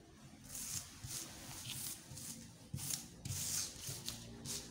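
Hands sliding and shuffling a pile of card number discs across a tabletop: a string of short rubbing, scraping strokes with brief pauses between them.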